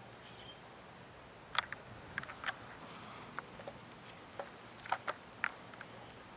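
Scattered light clicks and crackles from the crisp batter crust of a deep-fried wig being picked up and handled, a dozen or so irregular ticks.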